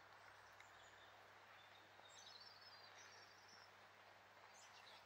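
Near silence: faint outdoor hush, with a few faint, high bird chirps about two to three and a half seconds in.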